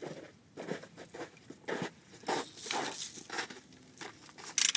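Footsteps crunching through crusted snow, coming closer and getting louder, with clothing rustling as the walker reaches the microphone. A short, loud rasp near the end.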